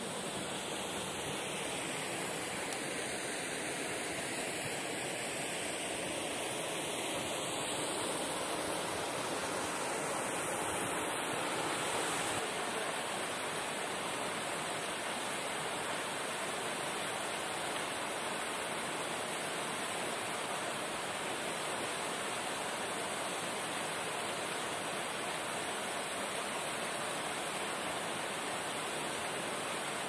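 Small waterfall and forest stream running, a steady, even rush of water with no break.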